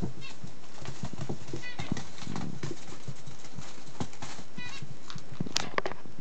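Quick, irregular clicks and pattering of a puppy scrabbling after a ball on a string, with a few short high squeaks and a sharper click near the end.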